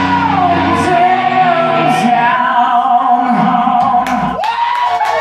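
Rock band playing live, with electric guitars holding long, wavering notes as a song rings out. The low bass drops out about a second in, and scattered sharp claps start near the end.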